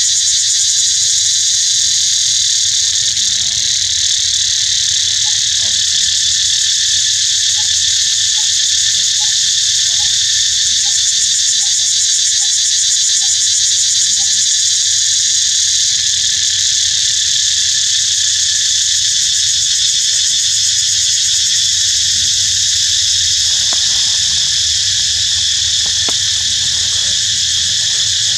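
A loud, steady, high-pitched insect chorus shrilling on without a break. From about 8 to 14 seconds in, a faint series of short notes repeats about twice a second underneath, and a few faint knocks come near the end.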